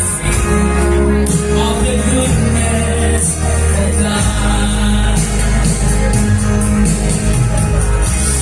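A child singing through a sound system over loud amplified backing music with a heavy, steady bass.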